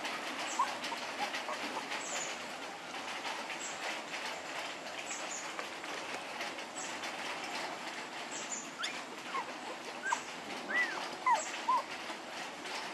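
Young puppies whimpering and crying in short, high-pitched squeals: a couple near the start and a cluster toward the end. These are cries of puppies wanting their mother nearby.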